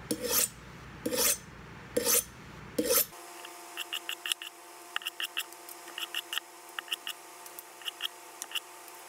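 Chef's knife being honed on a steel honing rod: four long scraping strokes about a second apart, then quicker, quieter strokes in short runs for the rest.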